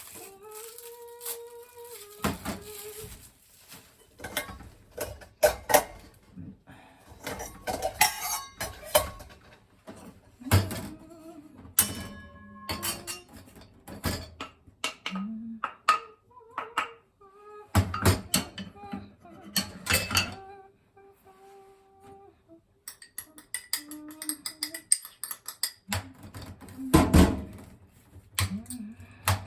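Kitchen utensils clinking and knocking against bowls and dishes in scattered, irregular strikes, some leaving a brief ring.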